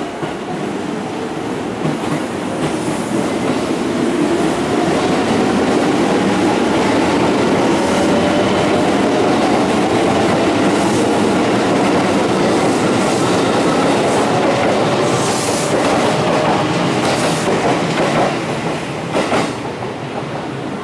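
JR West 281 series electric train pulling away and accelerating past: its motor whine climbs in pitch over the first ten seconds under a loud rumble of wheels on rail. Wheels clatter over rail joints, with a few sharp clacks late on as the last cars pass, and the sound eases near the end.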